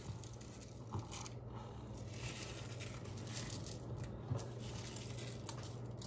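Light rustling and rattling of candy heart sprinkles being pinched from a small plastic cup and scattered onto a frosted cake, with a few small clicks, over a steady low hum.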